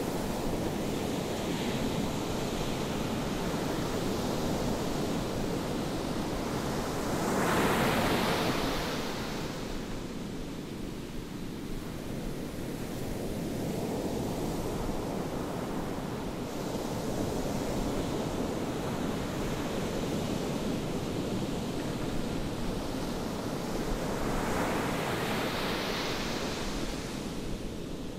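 Ocean surf on the Pacific coast: a continuous wash of waves, with two louder waves breaking, one about a third of the way in and one near the end.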